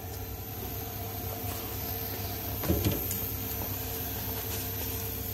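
Steady low machine hum with a faint constant tone from the K40 laser cutter, with a couple of light knocks about two and a half seconds in.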